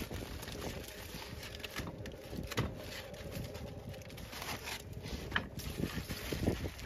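Aluminium foil crinkling and rustling as it is pulled off by gloved hands, with a few sharper crackles, over a low rumble of wind on the microphone.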